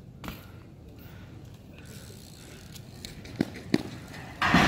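BMX bike rolling on concrete with a low, quiet tyre rumble, a click just after the start and two sharp knocks a little past three seconds in. A loud scraping noise begins near the end as the bike reaches a wooden ledge.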